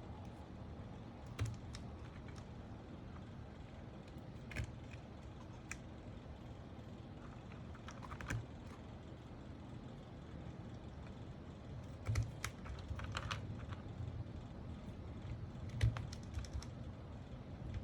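Irregular small plastic clicks and taps of mechanical keyboard parts being handled and fitted during a build, several in quick succession about twelve seconds in and again near the end, over a faint steady low hum.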